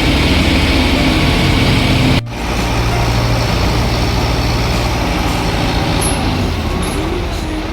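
Heavy diesel engines of several hydra cranes running steadily together. The sound drops out sharply for an instant about two seconds in, then carries on.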